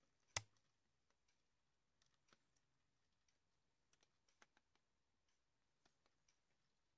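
Cockatiels' beaks tapping and nibbling at a plastic toy crane: one sharp click just after the start, then scattered faint clicks.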